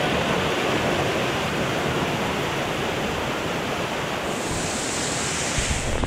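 Rushing water of a small waterfall cascading over rocks, a steady loud rush close to the microphone.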